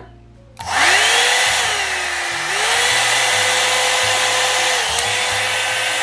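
Hot air dryer brush switched on: its motor spins up with a rising whine over a steady rush of air. The whine drops and climbs again as the twist dial is moved between speed settings, then winds down near the end.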